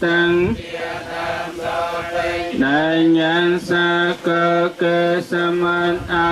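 Buddhist monks chanting Pali in unison: a steady, near-monotone recitation of men's voices in short, evenly paced syllables, rising in pitch once a little before the midpoint.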